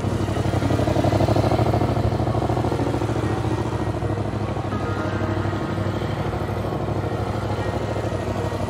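Motorcycle engine running at low revs with a steady, fast pulse as the bike is ridden slowly through tight figure-eight turns.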